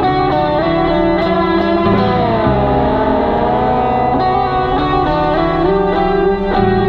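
Electric guitar played through an amplifier: thick, sustained layered tones over a low drone, with the pitch bending down and back up a couple of seconds in.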